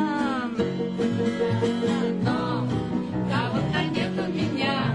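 Music: a song with plucked guitar accompaniment, playing steadily.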